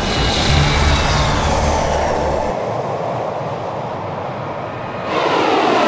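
Twin turbofan jet engines of the Embraer ERJ-145-based Netra AEW&CS at takeoff power: a loud rushing noise with a whine that falls in pitch as the aircraft climbs past. The deep rumble drops away about two and a half seconds in, and the noise swells again near the end with another falling whine.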